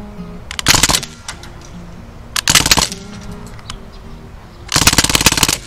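Crosman DPMS Panther Arms SBR CO2 BB rifle firing three short full-auto bursts, the last and longest near the end, with its CO2 cartridges running low.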